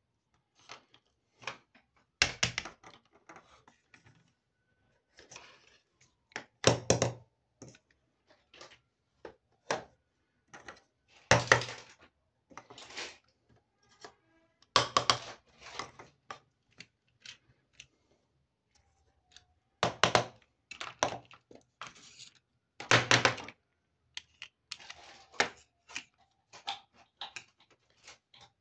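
Small hard-plastic toy kitchen pieces (tiny pots, pans and cups) being set down one at a time on a table: a series of knocks and light clatters, with a louder knock every few seconds.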